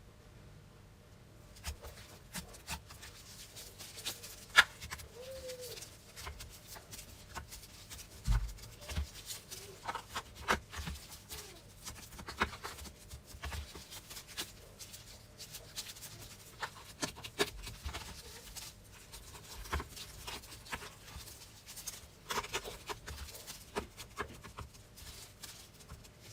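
Slime being squished and poked by hands, making irregular soft clicks and sticky pops, with a sharper snap about four seconds in and a brief squeak just after.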